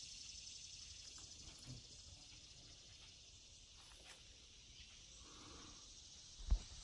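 A steady, high-pitched drone of insects in summer woods. Near the end comes a single short, low thump, the loudest sound.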